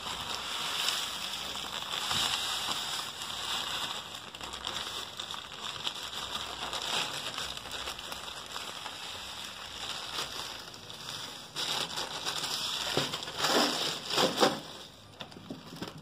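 Potting substrate pouring out of a plastic bag into a plastic blender base: a steady rustling hiss of falling soil with the bag crinkling, and a few louder rustles near the end.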